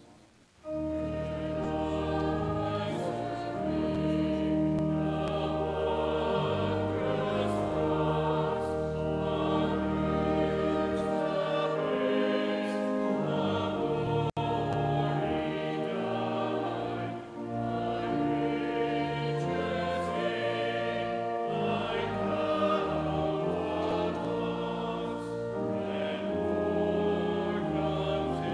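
Small church choir singing with pipe organ accompaniment, slow held chords over a deep bass line, beginning about a second in after a brief pause.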